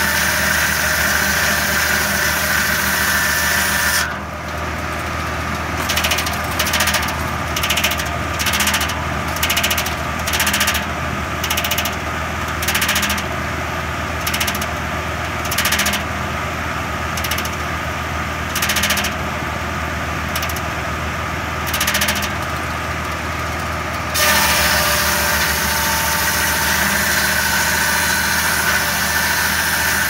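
A Foley Belsaw M11 circular sawmill, driven by a tractor through its PTO, cutting a board: the big circular blade rips through wood for the first few seconds and again from about 24 s in. Between the cuts the blade spins without cutting under the tractor's steady engine drone, with short noisy bursts about once a second.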